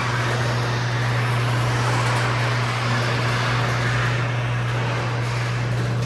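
Chamberlain LiftMaster half-horsepower garage door opener running as a 16-foot sectional double garage door travels closed: a steady low motor hum with the rolling rattle of the door in its tracks. The rattle dies away near the end as the door finishes its travel.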